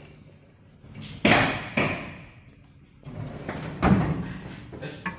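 A few loud clunks and knocks, the strongest about a second in and again near four seconds, with rattling between.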